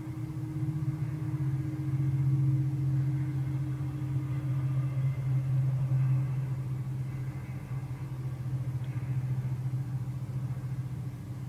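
A steady low mechanical drone that swells about two seconds in and slowly eases off.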